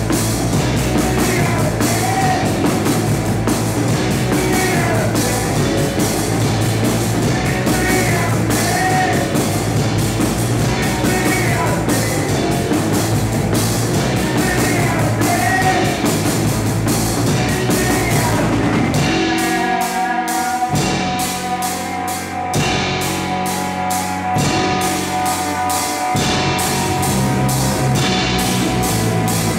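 A rock band playing live: drum kit with cymbals, electric bass and electric guitar together. About twenty seconds in, the deep bottom end drops out for several seconds and the sound thins, then the full band comes back in near the end.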